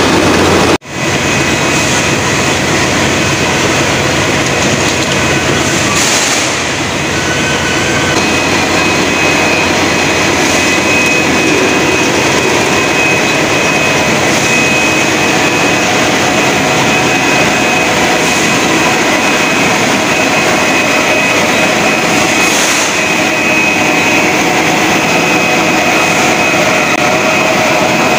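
Steady running noise of a bottled-water production line: conveyor carrying plastic bottles and the rotary filling and capping machinery working, with a thin steady high whine over it. It cuts out for an instant about a second in.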